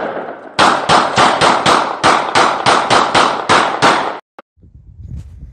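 Rapid gunfire: a loud shot fades in the first half second, then a fast string of sharp shots, about four or five a second, runs for some three and a half seconds and stops abruptly.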